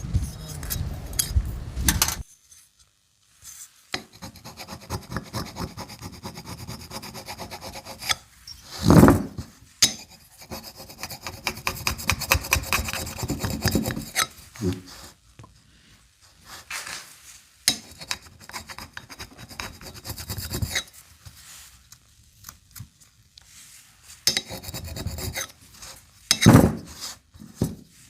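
Irregular bouts of hand scraping and rubbing, like filing or sanding, with quiet pauses between them; the loudest strokes come about nine seconds in and again near the end.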